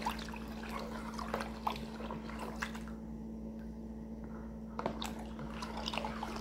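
A plastic spoon stirring soapy water in a plastic basin: light sloshing and dripping with small clicks of the spoon against the basin. A faint steady hum runs underneath.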